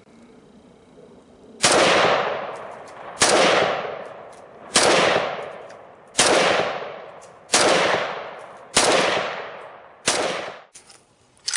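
AK-47 rifle in 7.62×39 fired in slow semi-automatic: seven shots, roughly one every second and a half, beginning a moment after the start. Each report rolls off in an echo lasting over a second.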